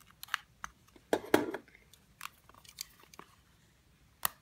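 Sealing tape being cut and picked off a small cardboard box: a string of sharp crackles and clicks, loudest about a second in, with another near the end.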